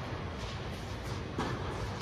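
Steady low rumble and hiss of background noise in a large indoor tennis hall, with a few faint distant ticks and no clear racket hit.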